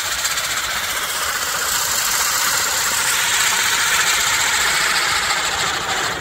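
Catherine wheel firework spinning and burning, a steady loud hiss of the fizzing fuse jets.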